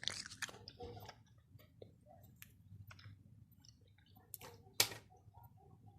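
A pop-it fidget toy and a sponge pressed and squeezed close to the microphone: scattered soft clicks and crackles, busier in the first second, with one sharper click about five seconds in.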